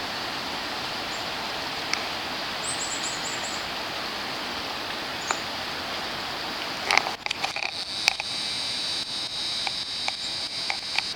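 Steady rushing of the flooded Chemung River's high water, with a quick run of about six high bird chirps about three seconds in and a few sharp knocks and crackles about seven seconds in.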